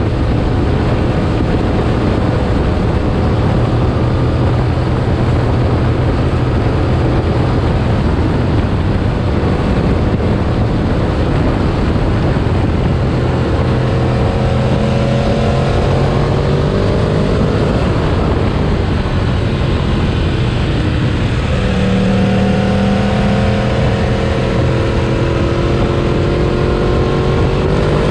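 Sport motorcycle engine running under way and accelerating, its pitch rising twice, about halfway through and again near the end, over a steady rush of riding wind.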